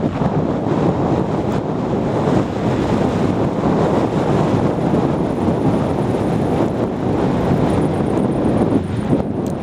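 Steady wind noise buffeting the camera microphone from a bicycle rolling fast off-road.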